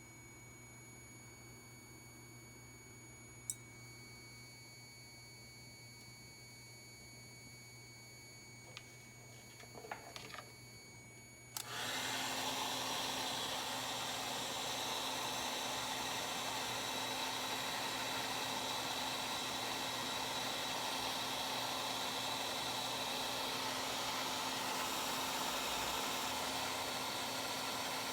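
A faint hum with a few light clicks, then about a third of the way in an electric blower switches on abruptly and runs steadily, with an even rushing noise over a low hum.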